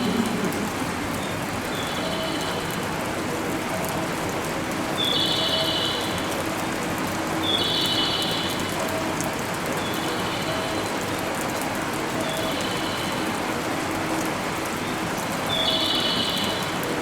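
Station platform ambience: a steady hiss like rain on the platform roof, with a short high-pitched tone pattern repeating about every two and a half seconds.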